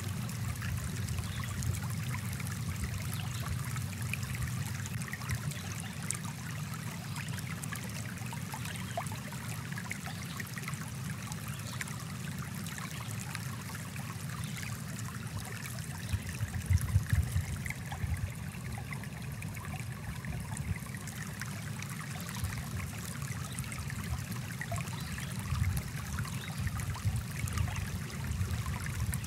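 Shallow stream water running steadily over rocks, an even rushing sound, with a short spell of louder low rumbles about sixteen to seventeen seconds in.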